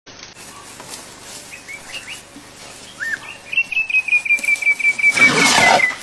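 A bird calls with a few scattered chirps, then a fast trill of about seven chirps a second that falls slightly in pitch. Near the end comes a loud rush of noise lasting about a second.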